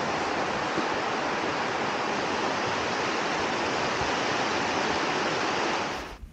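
Steady rushing of a mountain stream cascading down small waterfalls beside a rocky path. It cuts off suddenly about six seconds in.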